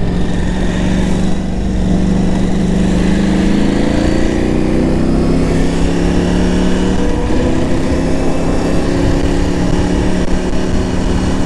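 KTM 890 Adventure R parallel-twin engine running at a steady cruise, its note climbing a little over the first few seconds and then holding, with wind rumble on the microphone.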